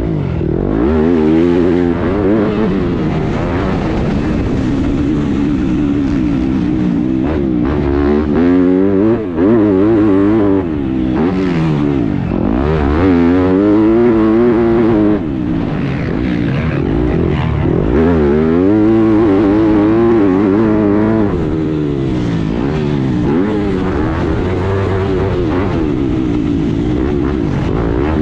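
Yamaha YZ250F four-stroke single-cylinder motocross engine, heard from onboard, revving hard at racing pace. The pitch climbs and drops again and again as the rider accelerates, shifts and backs off for corners.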